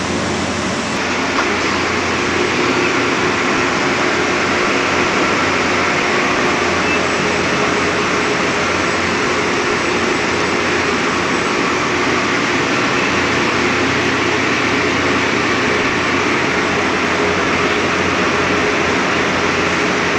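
A steady mechanical drone with a few faint steady hum tones, like machinery or air-moving equipment running.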